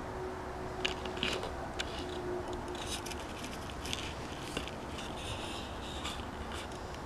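Faint scraping and clicking handling noises, a scattering of short scratchy sounds between about one and six and a half seconds in, over a low steady hum.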